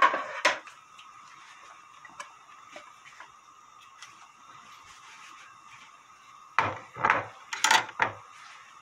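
Earthenware pot of noodle soup simmering on a gas stove, faint small bubbling ticks over a steady low hiss; then, from about six and a half seconds in, a few sharp clattering knocks of a metal kitchen knife set down on a wooden cutting board.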